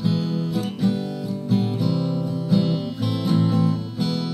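Acoustic guitar strumming chords, about one strike every half second to a second.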